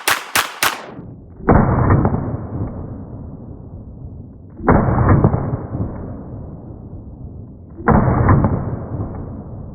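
Glock 19 9mm pistol firing fast semi-automatic shots, about four a second, during a mag dump from an extended 33-round magazine; the string stops about a second in. Then come three muffled, drawn-out booms about three seconds apart, each starting sharply and fading slowly.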